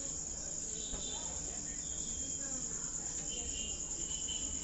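Crickets trilling steadily in the background, a continuous high-pitched sound.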